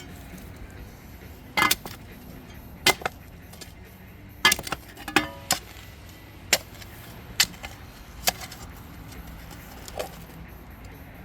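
About ten sharp clinks and knocks of hard objects at irregular intervals, most of them in the first half, over a steady low background.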